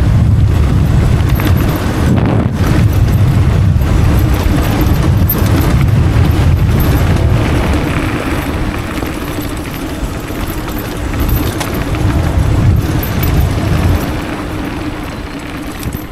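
A 72 V electric downhill bike riding fast on a dirt trail: wind rushing over the microphone and tyres rumbling on the ground, with a steady hum under it. It grows quieter toward the end.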